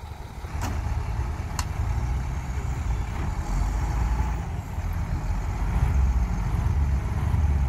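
Heavy diesel engines of the stuck dump truck and the wheel loader running with a deep, steady rumble. The rumble swells in the first second and then holds. Two sharp clicks come about half a second and a second and a half in.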